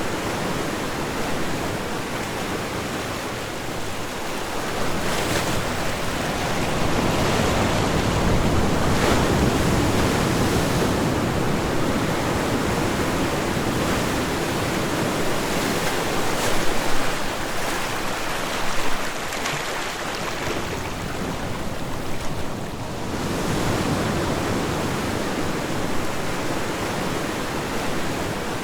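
Ocean surf: a continuous wash of breaking waves that swells and eases every several seconds, with a few brief louder splashes.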